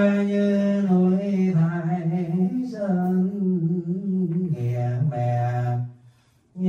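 A single man's voice chanting Vietnamese Buddhist funeral liturgy in long held notes, sliding lower about five seconds in; it breaks off briefly about six seconds in and starts again.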